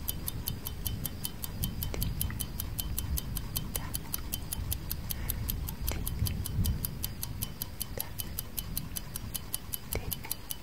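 Clock-style tick-tock sound effect of a countdown timer: quick light ticks, about five a second, with a deeper tock about every two seconds, over a low rumble.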